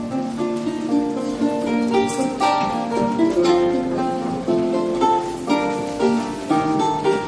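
Two lutes playing a duet: plucked notes in overlapping lines, each ringing briefly and dying away.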